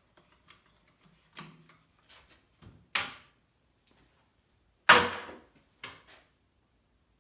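Metal hand tools and engine parts knocking and clattering on a workbench: a handful of separate sharp clanks, the loudest about five seconds in.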